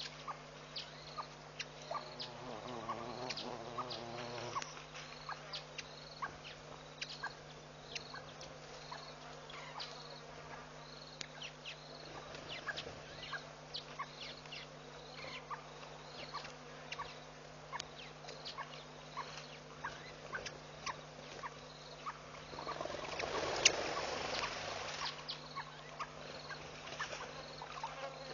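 Outdoor bush ambience picked up by a webcam microphone: a faint high chirp repeating about once a second, many scattered short clicks, and a steady electrical hum. A louder rustling noise lasts about two seconds near the end.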